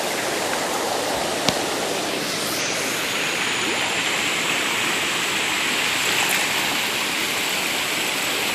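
Stream water rushing over rocks, a steady hiss. The rush turns brighter about three seconds in, and a single sharp click sounds about a second and a half in.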